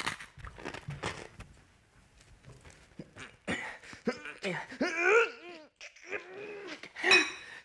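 A man makes wordless, strained vocal noises through clenched teeth, short pitched whines and groans that bend up and down, in bursts from about three seconds in. A short knock sounds right at the start.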